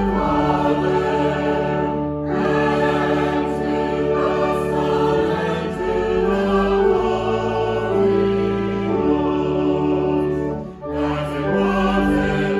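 A choir singing a hymn in long, held chords, with short breaks between phrases about two seconds in and again near the end.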